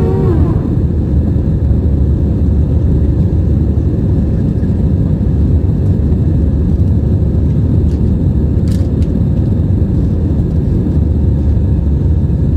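Steady low roar of an airliner's engines and airflow heard from inside the passenger cabin, with a single brief click near the end.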